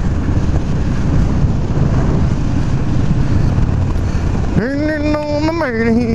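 Harley-Davidson V-twin motorcycle engine running at road speed, with heavy wind noise on the helmet microphone. About four and a half seconds in, a drawn-out, wavering voice rises over it.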